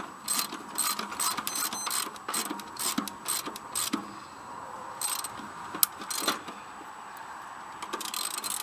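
Socket ratchet wrench clicking in quick back-and-forth strokes, about three a second, as a bolt is backed out of a riding mower's seat pan. The clicking thins out and pauses past the middle, then picks up again near the end.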